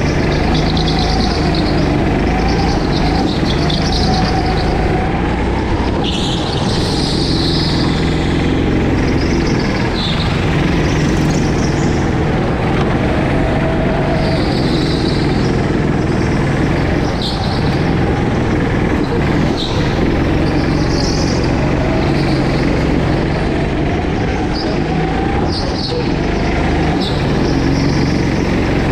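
Go-kart engine running under throttle, heard from on board the kart, its pitch rising and falling as it is driven through a run of corners. Short high-pitched squeals come every few seconds, typical of the tyres sliding on the smooth hall floor.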